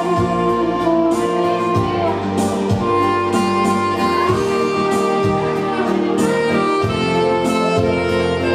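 Wedding dance-band music: a sustained lead melody over a steady bass line and drums.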